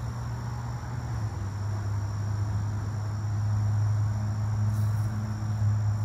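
Insects trilling steadily at a high pitch over a low, steady engine hum that drops slightly in pitch about a second in.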